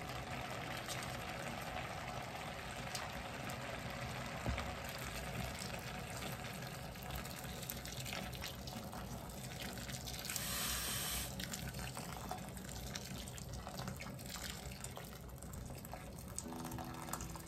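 Vegetable broth and water poured from a kettle into an enamelled cast-iron pot of chopped vegetables: a steady splashing fill, with a louder gush about ten seconds in.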